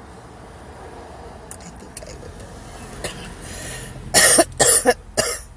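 A woman coughing hard three times in quick succession near the end, a reaction to the harsh smoke of a Black & Mild cigar that she cannot inhale comfortably.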